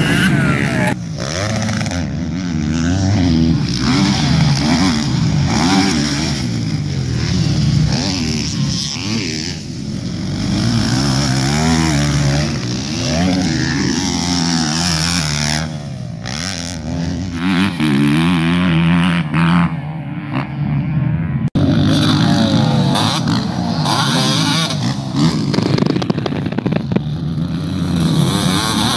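Several motocross dirt bikes racing past on a dirt track, their engines revving up and down through throttle and gear changes, with a brief break about two-thirds of the way through.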